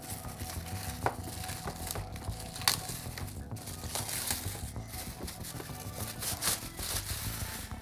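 Thin plastic shipping bag crinkling and rustling as it is worked off a boxed toy figure, with two sharp clicks about one and two and a half seconds in.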